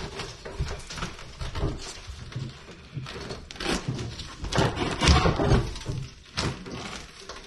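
Old enamelled drop-in kitchen sink being worked loose from the countertop by hand: irregular scraping, creaking and knocks as its caulked rim breaks free. The loudest bump comes about five seconds in.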